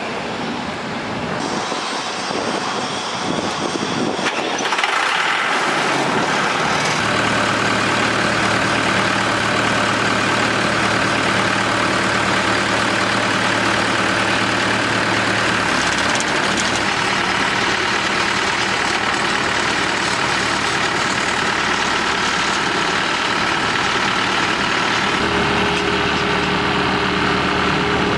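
Pneumatic rock drilling rig's engine running steadily. Its note shifts about halfway through and again near the end.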